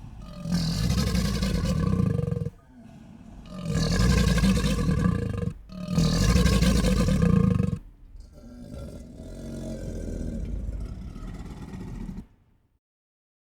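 Sound-effect animal roars: three loud roars of about two seconds each, then a quieter, longer roar that fades out about twelve seconds in.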